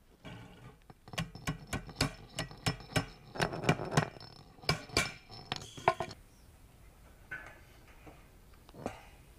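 Hammer tapping welded wire mesh bent over the edge of a wooden board to crease a cage corner: a quick run of light metallic strikes, about three or four a second, with a faint ring from the wire. The strikes stop about six seconds in, leaving only a few lighter clicks.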